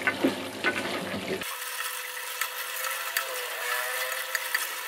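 Wooden spatula stirring and scraping thick coconut-milk sambal in a metal pot, over a steady sizzle with many small crackles. The coconut milk has split its oil, the sign of the final stage of cooking.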